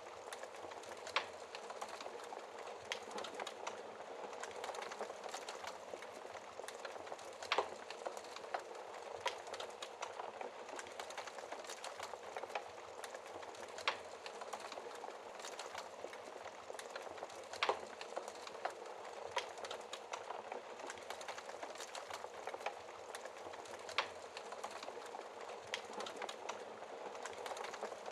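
Wood fire crackling in a fireplace: a steady soft hiss with a sharp pop every few seconds.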